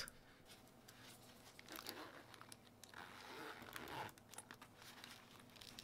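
Faint rustling and handling noise as a zippered nylon carrying pouch is picked up and unzipped.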